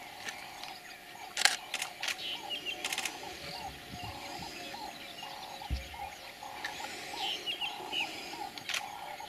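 Camera shutters clicking: a few single clicks and a quick burst in the first three seconds, one more near the end. Behind them birds keep up a run of short repeated calls and high chirps.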